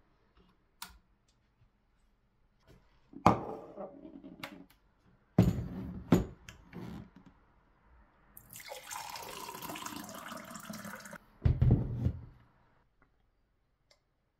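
Water poured from a filter jug into a drinking glass, a steady splashing stream lasting about two and a half seconds past the middle. Around it come several knocks and clunks as the jug and glass are handled and set down on the countertop, the heaviest just after the pour.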